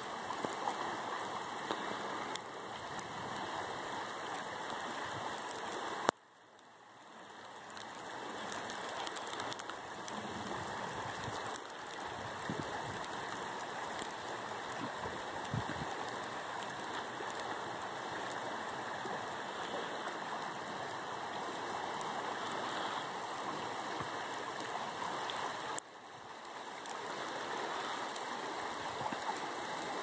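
Steady rushing wash of the Scioto River flowing past a snowy, stony bank, with freezing rain falling. The sound drops away sharply twice, about six seconds in after a click and again about four seconds before the end, each time swelling back within a couple of seconds.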